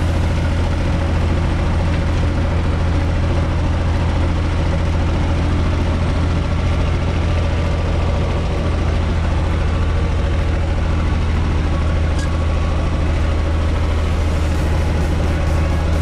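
UTB 445 tractor's three-cylinder diesel engine running steadily as the tractor drives, a loud, even low drone heard from inside the cab.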